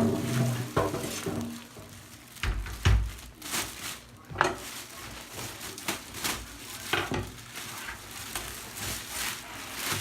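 A PC tower case and its packaging being handled: rustling wrapping with irregular knocks and bumps, the loudest near the start and about three and four and a half seconds in.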